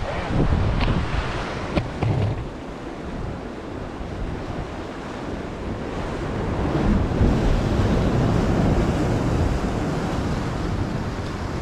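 Ocean surf washing and breaking against jetty rocks, with wind rumbling on the microphone. The wash swells louder about halfway through, and there are a couple of short knocks near the start.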